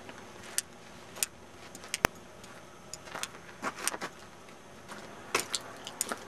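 Footsteps crunching on packed snow, irregular sharp crunches as someone walks up to a porch door, over a steady faint hiss.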